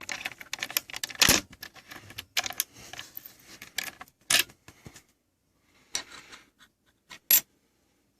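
A key rattling and clicking in the cylinder of an FSB sliding door lock as it is worked out, with sharp metal clicks about a second in and again about four seconds in, then a few single clicks near the end.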